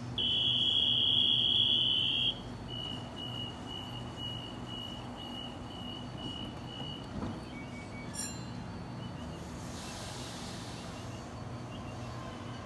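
A steady high tone for about two seconds, then a run of short rapid beeps at a similar pitch for about four seconds: a Sydney double-deck electric train's door-closing warning. A soft hiss follows about ten seconds in.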